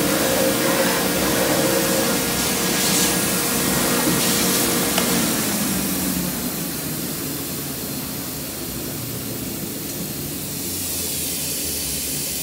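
Double vertical disc grinder running: a steady machine hiss and whir, with a hum that fades out about five seconds in. The level drops a little soon after.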